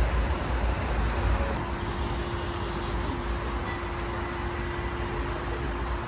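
Road traffic noise: a steady rumble of cars and trucks on the road alongside, with a faint steady hum joining about one and a half seconds in.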